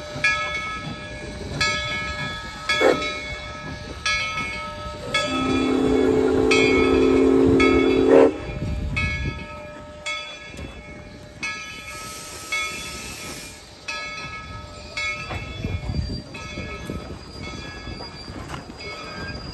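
Steam locomotive arriving, its bell rung steadily at about three strokes every two seconds. About five seconds in, the whistle sounds one long chord-like blast lasting about three seconds.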